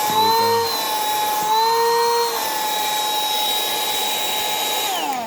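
FH268 cordless handheld vacuum cleaner's small motor running with a steady high whine. Twice its pitch rises briefly and a lower tone joins in. Near the end it is switched off and the whine falls away as the motor spins down.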